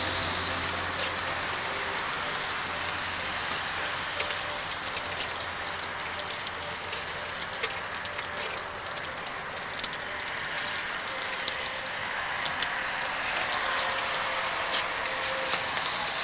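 Steady hiss of spraying and falling water with scattered light ticks, as a water-fed pole brush washes a window in freezing rain. A low hum fades out about six seconds in.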